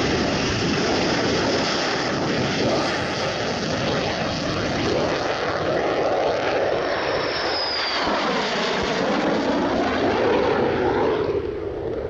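Jet fighter aircraft engine noise, a steady dense roar as the jets fly past, with a high whine that slides down in pitch about seven seconds in.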